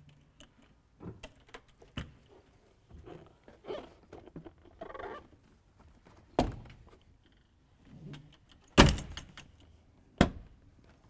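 Knocks and clatter of an A-frame camping trailer's entry door and grab handle being handled, with quieter rustling between. A sharp knock about six seconds in, then the loudest bang, with a quick rattle of clicks, a little before nine seconds as the door shuts, and one more knock about a second later.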